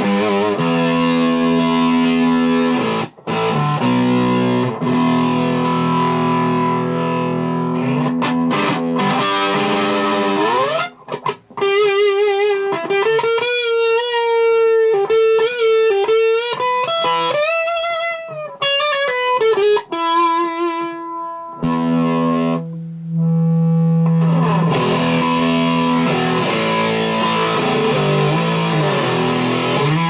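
Electric guitar played through an RHL Pedalworx Buzz Bomb high-gain fuzz pedal, heavily distorted. It plays sustained fuzzy chords with a slide upward about ten seconds in, then a single-note lead with wide vibrato and bends, then chords again near the end.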